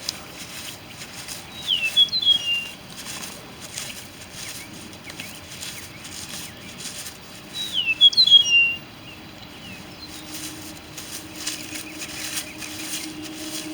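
A songbird gives two short phrases of quick, high, falling chirps, about six seconds apart, over faint steady background noise.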